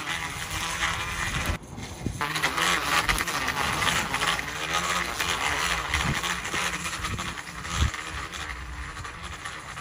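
String trimmer held vertically as an edger, running steadily and cutting grass along a sidewalk edge. The sound drops out briefly about a second and a half in, and a short knock comes near the end.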